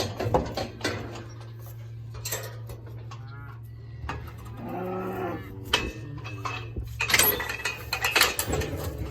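A calf bawls once, about a second long, midway through, amid sharp metal clanks and rattles of the pen gates and chute near the start and through the last few seconds, over a steady low hum.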